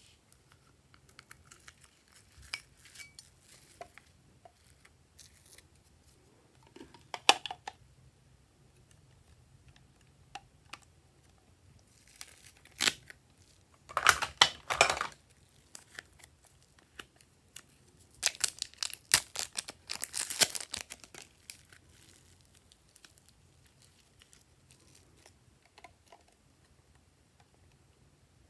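Plastic packaging and containers handled on a tabletop: scattered light taps and rustles, with loud crinkling and tearing-like bursts about halfway through and again about two-thirds in.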